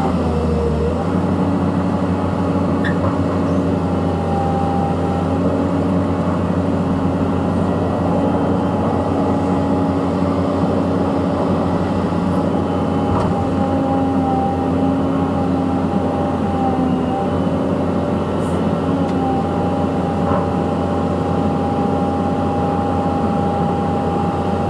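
Caterpillar 320C hydraulic excavator running steadily under load while digging and loading soil: a diesel drone with a higher steady tone above it that shifts slightly in pitch as the controls are worked.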